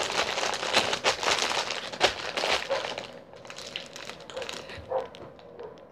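Crinkling, rustling handling noise close to the microphone, dense for about the first three seconds, then thinning to scattered clicks and rustles.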